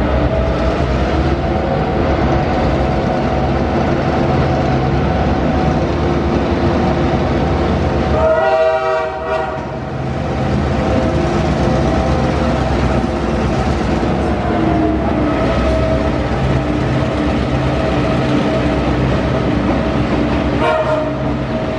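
Two diesel-electric locomotives, T357 and P22, running under power as they pull a passenger train out. Their engine note rises slightly about a second in and falls about fifteen seconds in. A locomotive horn sounds for about a second and a half around eight seconds in, and again, shorter and fainter, near the end.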